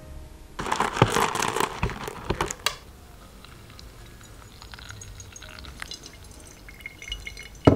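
Coffee beans rattling and clattering out of a bag for about two seconds, then a soft steady trickle of hot water poured from a kettle onto ground coffee in a paper pour-over filter. A single sharp knock near the end.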